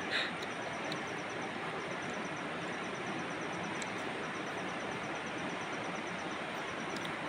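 Steady rush of flowing river water, with faint trains of insect chirps repeating high above it.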